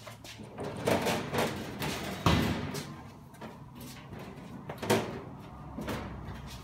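Clunks, scrapes and knocks of a stainless steel access door on the side of an Extractomat mat washer being handled and swung open, with the sharpest bang a little over two seconds in and another near five seconds in.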